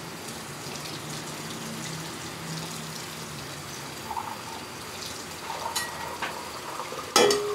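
Soy-sauce liquid simmering in a wok over a gas burner flame: a steady bubbling hiss. Near the end a sudden loud clatter of a utensil against the wok as stirring starts.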